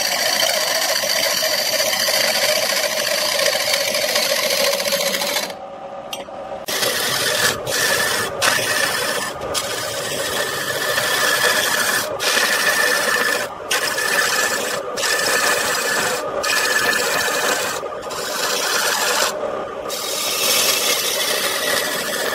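Hand-held turning tool cutting a wooden spindle spinning on a wood lathe: a continuous rough scraping hiss as shavings peel off. The cut eases about six seconds in, then breaks off briefly every second or so as the tool is lifted and set back between passes.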